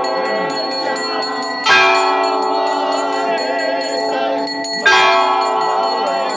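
A large temple bell struck about every three seconds during the aarti, twice here, each strike ringing on with a long, many-toned hum. Under it run a lighter, rapid jingling and voices singing.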